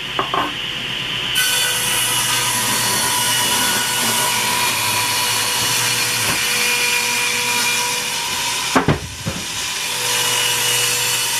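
Table saw ripping the rounded edge off a 2x8 board fed with a push stick. The motor runs steadily and the blade's cutting noise rises about a second in, when the board meets the blade. A brief knock comes near the end, then the saw runs on.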